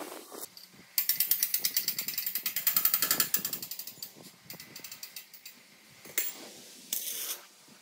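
Fast, even run of mechanical clicks, like a ratchet, for about two and a half seconds starting about a second in, followed by scattered softer knocks and a short burst near the end.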